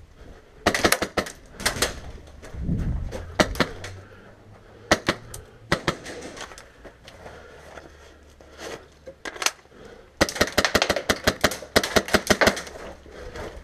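Airsoft gunfire: scattered single shots and short strings, then a rapid string of shots lasting about two seconds starting some ten seconds in, from an Ares Amoeba AM-013 rifle fitted with a PolarStar Jack HPA engine.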